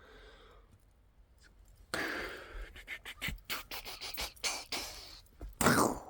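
Irregular rustling and crunching of footsteps on the forest floor, starting about two seconds in after a quiet start, with a louder scuff near the end.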